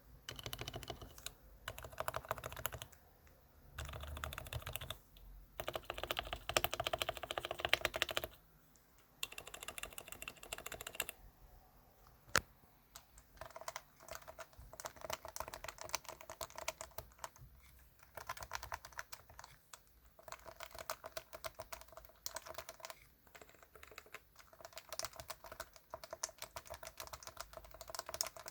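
Typing on a Leopold FC660C keyboard with Topre electrostatic capacitive switches: fast runs of muted keystrokes in bursts, broken by short pauses, with one sharper single keystroke about midway.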